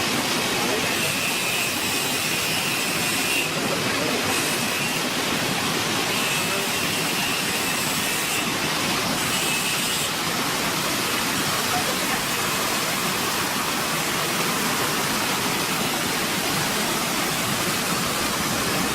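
Vegetable washing machine running: a steady, unbroken rush of water noise.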